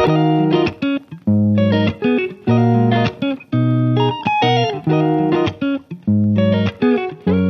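Background music: a guitar-led instrumental played in short, rhythmic phrases with brief gaps between them.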